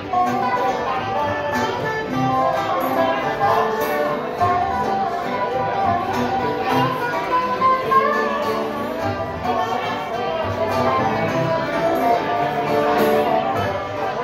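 Acoustic bluegrass band playing live: five-string banjo, fiddle and acoustic guitars together in a steady, busy tune.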